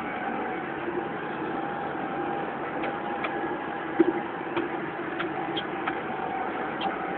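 Lamborghini R3 EVO 100 tractor engine running steadily, heard from inside the cab, with scattered clicks and knocks through the second half and the loudest knock about four seconds in.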